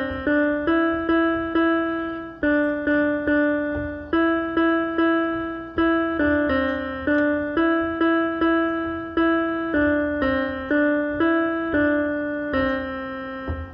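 Electronic keyboard playing a simple melody one note at a time with a single finger, each note struck and fading, about two to three notes a second. The last note is held a little longer near the end.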